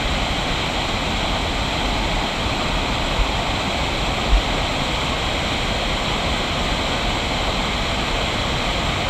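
Steady rush of water pouring over the man-made waterfall of an irrigation canal. Two brief low thumps come about three and four seconds in.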